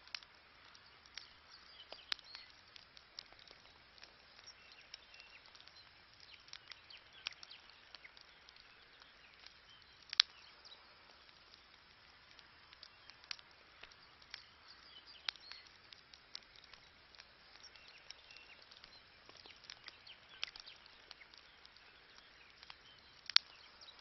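Wood campfire crackling, with irregular sharp pops and snaps over a faint steady hiss; the two sharpest pops come about ten seconds in and near the end.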